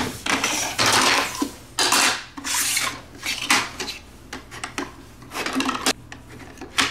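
Plastic LEGO bricks being handled and fitted together: irregular rubbing and clattering with a sharp click near the end.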